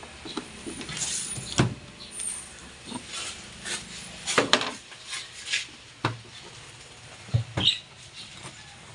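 Irregular clicks, knocks and scraping of hands and a screwdriver working a hose clamp and a ribbed rubber air intake hose loose from a plastic air filter box, with the sharpest knocks about halfway through and near the end.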